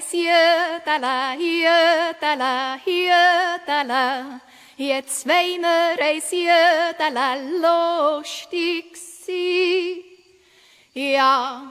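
A woman yodeling, her voice leaping back and forth between low and high notes with vibrato. It breaks off briefly near the end, then starts again.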